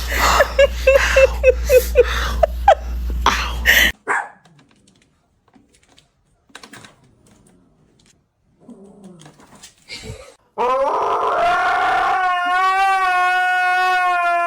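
A quick run of short yelps and taps, then a pause, then a dog howling one long, wavering note for about four seconds near the end.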